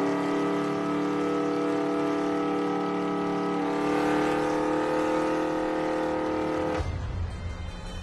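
Classic Dodge Charger muscle car's engine running hard at high revs, its pitch held steady and climbing slightly about halfway through. About seven seconds in it cuts off suddenly to a deeper, quieter rumble.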